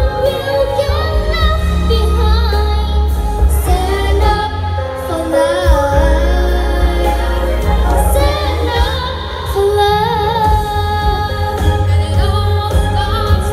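A song with a female lead voice singing, holding wavering notes over a music backing with a heavy, steady bass.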